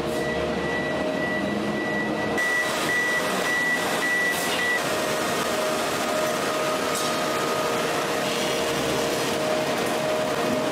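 Heavy hydraulic forging press machinery running: a steady hum and rush of noise with a couple of held tones, and a high whine that cuts off about halfway through.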